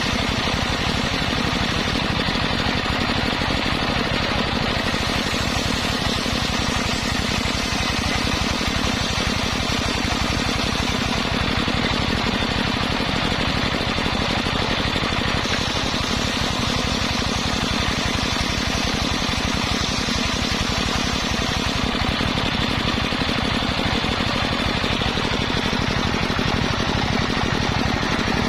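Engine-driven circular sawmill running steadily, its motor chugging in fast even pulses with the whirring saw blade over it, as it saws waru wood.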